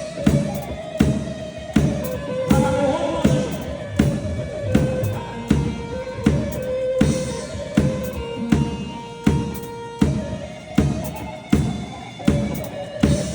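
Instrumental Turkish makam music: a sustained, ornamented melody line over a steady drum beat.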